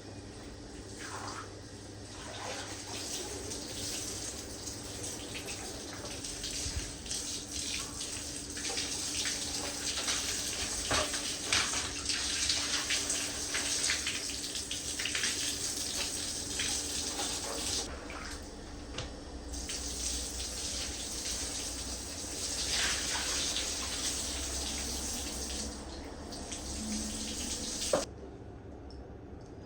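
Water running from a tap into a sink, with light knocks and clatters throughout; the tap is shut off with a click about 28 seconds in.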